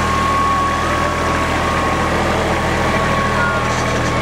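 Engine of the vehicle towing a hayride trailer, running steadily, with a steady high whine over the low engine note.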